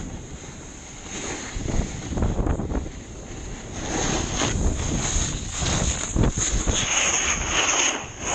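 Wind buffeting the microphone of a camera carried by a snowboarder riding downhill, over the hiss of the board sliding and scraping on snow; it grows louder about halfway through as speed picks up.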